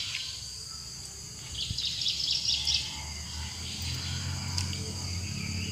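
Outdoor insect chorus: insects calling in steady high tones, with a rapid pulsing chirp from about one and a half to three seconds in. A low rumble comes in about three seconds in.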